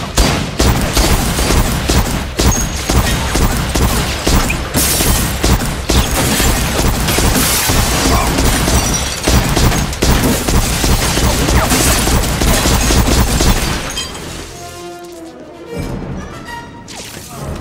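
Movie shootout: rapid pistol gunfire with heavy booms over an action music score, for about thirteen seconds; then the shooting stops and the music carries on more quietly.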